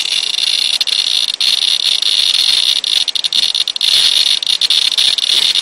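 Radiation Alert Inspector Geiger counter clicking so fast that the clicks run together into a steady, high-pitched chatter. The rapid rate is the sign of a high reading, about 13 to 14 microsieverts per hour.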